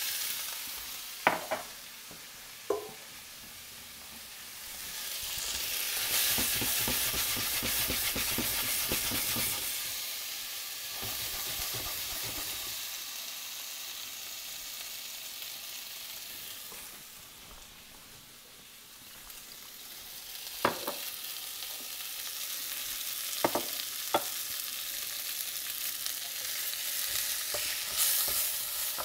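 Flour-dredged shrimp sizzling in a hot skillet. The sizzle gets louder about five seconds in and again near the end, while the shrimp are stirred with a wooden spoon. A few sharp clicks come near the start and a handful more around twenty seconds in.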